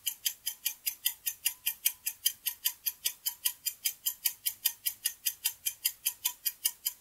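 Countdown-timer sound effect: a steady run of clock-like ticks, about five a second, marking the seconds running out.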